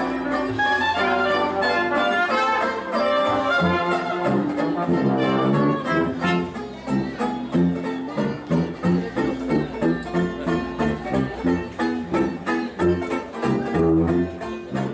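A street brass band with a sousaphone plays a tune. It holds sustained chords at first, then from about six seconds in moves into a bouncy beat of about two a second, with the sousaphone's bass notes clear on the beat.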